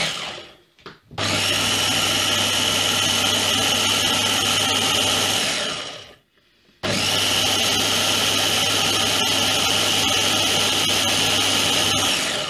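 Small Ninja blender motor blitzing fresh cream to churn it into butter, running steadily in two bursts of about five seconds with a short stop between, after a couple of brief knocks as it is switched on.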